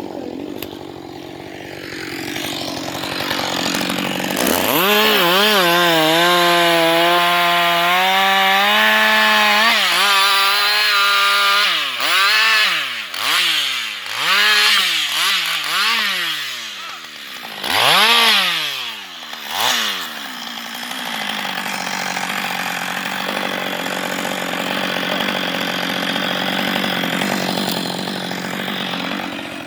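Husqvarna 560XP two-stroke chainsaw idling, then revved to full throttle about four seconds in and held there with a wavering pitch, as in a cut through wood. It is then blipped up and down several times and drops back to a steady idle about twenty seconds in.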